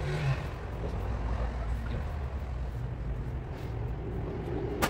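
A low, steady mechanical rumble runs under faint background noise, with a short voice sound at the start. A sharp knock lands right at the end, the first of a fast series.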